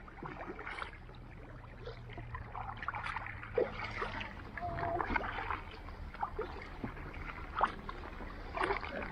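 Kayak paddles dipping and splashing in the water with irregular drips and small splashes, as a tandem inflatable kayak is paddled along.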